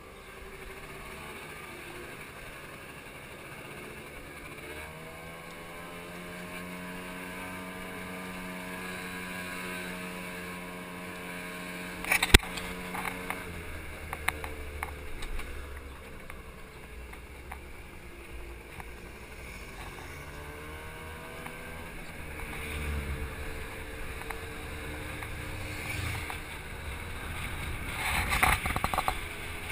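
Motor scooter engine running under way, its pitch rising and falling with speed, over a steady rush of road and air noise. A sharp clatter about twelve seconds in, and another burst near the end.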